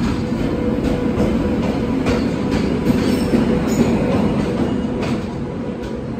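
Express train's coaches rolling past along the platform as the train pulls in: a steady rumble of wheels on the rails, with occasional faint clicks.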